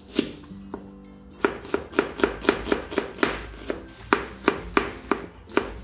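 Kitchen knife slicing a red onion on a plastic cutting board. A couple of single cuts come first, then from about a second and a half in a steady run of knife strikes on the board, several a second.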